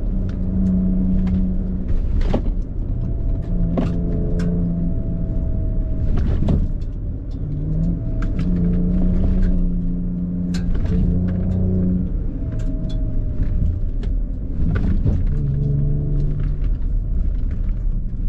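Ford Ranger Raptor's twin-turbo V6 running while driving a dirt trail, its note stepping up and down with the throttle. Scattered sharp knocks and rattles come from the truck moving over the trail.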